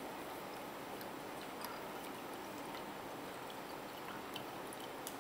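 A thin stream of liquid being poured slowly into a glass beaker, a faint steady trickle, with a few faint ticks.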